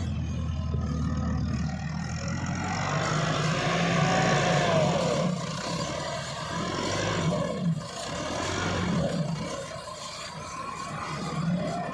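Diesel farm tractor engines running and changing speed while a front-loader tractor works soil, with a short curving whine near the middle and a single sharp knock about two-thirds of the way in.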